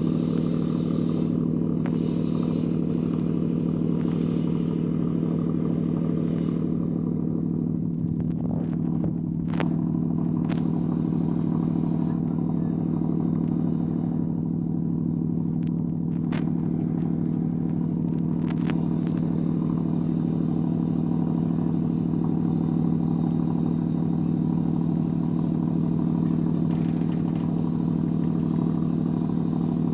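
A ship's anchor windlass running steadily as it heaves in the anchor: a loud, even machine hum, with a few sharp clicks about a third and half of the way through.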